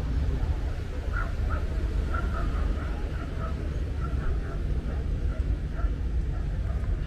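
An animal's short calls repeated several times a second, over a steady low rumble.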